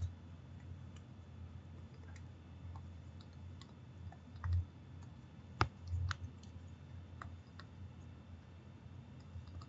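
Light clicks and taps of a stylus writing on a tablet screen, with two sharper taps in the middle, over a faint steady low hum.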